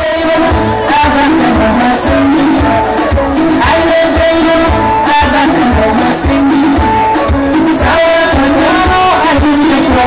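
A woman singing into a microphone over loud, amplified music with a steady beat, heard through the concert's sound system.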